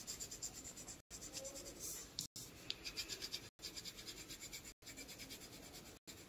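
Coloured pencil scratching on paper in quick back-and-forth shading strokes, several strokes a second.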